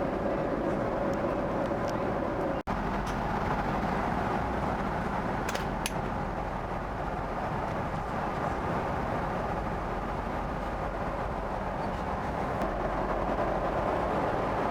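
Steady rushing cabin noise inside a Boeing 777-200ER airliner, with a brief dropout about two and a half seconds in.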